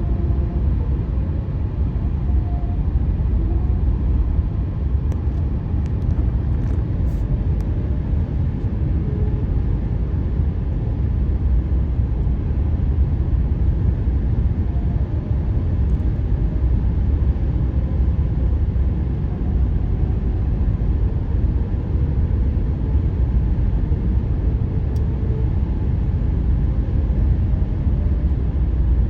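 Car tyres droning on new asphalt: a steady low road rumble with faint wavering hum-like tones over it. These are the 'ghost noises' of a new surface that, by the uploader's account, is slow to settle because it was laid in cold temperatures.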